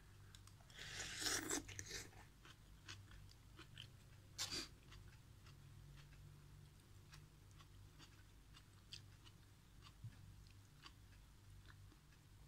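A person eating a mouthful of instant noodles and vegetables: a noisy burst of mouth sound about a second in as the noodles go in, a shorter one a few seconds later, then soft chewing with small scattered clicks.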